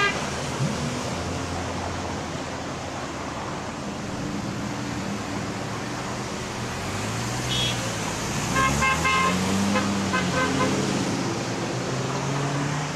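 Cars passing on a road with steady traffic noise. About eight seconds in, a passing driver gives a quick series of short car-horn toots, honks of support for the roadside sign-wavers.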